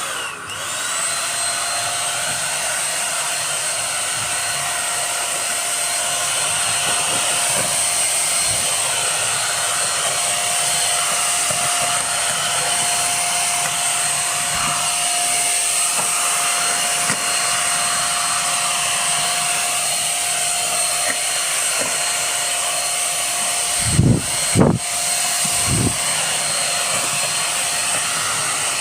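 Simplus handheld vacuum cleaner's motor spinning up and then running steadily, a high whine over a rush of air. Near the end come three brief low thumps.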